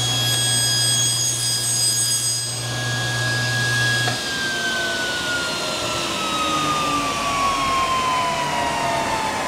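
SawStop table saw running at full speed just after a rip cut through a thin wood strip; about four seconds in it is switched off and the blade and motor coast down, the whine falling steadily in pitch.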